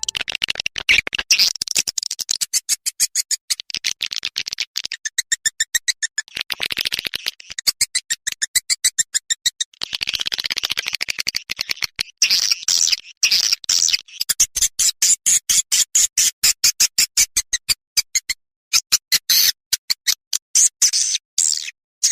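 Swiftlet lure-call recording: swiftlet twitters made of rapid trains of sharp clicks and buzzy chirps, with short gaps. This is the kind of calling sound played in a swiftlet house to draw swiftlets in to roost.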